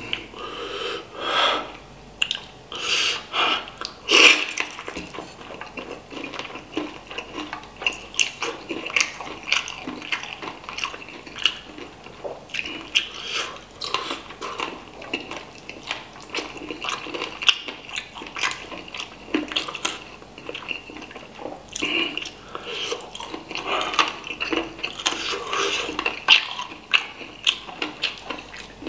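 Close-miked wet eating sounds: a person chewing, smacking and sucking meat off spicy chicken heads and feet in soupy broth, as a steady stream of small wet clicks with a few louder slurps in the first few seconds.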